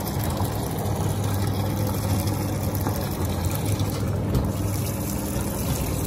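Hisense 11 kg twin-tub washing machine's wash tub running: a steady low motor hum under the swish of foamy water churned by the pulsator.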